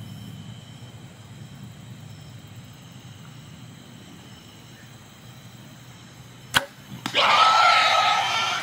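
A bow shot at a feral hog: a low steady hum, then the sharp snap of the bow's release about six and a half seconds in. Half a second later a loud, harsh noise with a steady high note running through it sets in and goes on.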